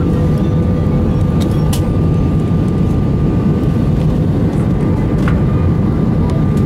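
Steady cabin noise of an Airbus A320 in flight: a loud, even low roar of airflow and engines, with a faint steady whine above it and a few light clicks.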